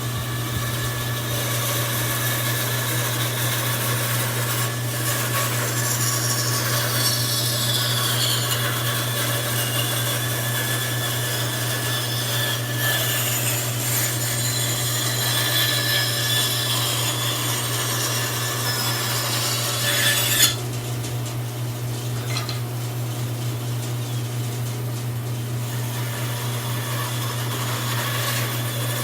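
Bandsaw cutting a wooden spoon blank: a steady motor hum under the hiss of the blade in the wood, with whining tones that slide in pitch as the cut goes on. About twenty seconds in there is a brief louder burst, after which the sound drops a little.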